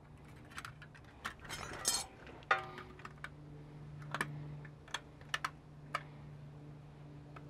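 Scattered light clicks and rustling of small metal, rubber and felt seal rings being handled and pushed into place at a steering knuckle's rear wiper seal, with one brief squeak about two and a half seconds in, over a steady low hum.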